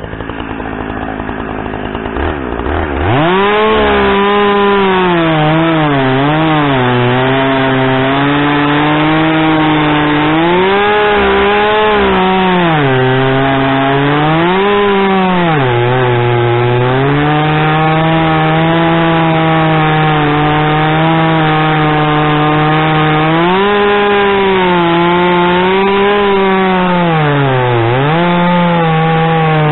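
Two-stroke chainsaw cutting through a log for firewood rounds. It runs quieter for the first few seconds, then opens to full throttle about three seconds in. Its engine pitch keeps dipping and recovering as the chain bogs under load in the wood.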